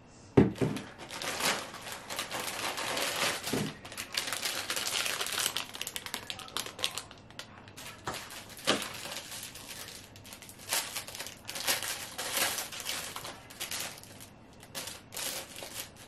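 Clear plastic packaging bags crinkling and rustling in a long run of bursts while they are handled and opened, with a sharp knock about half a second in.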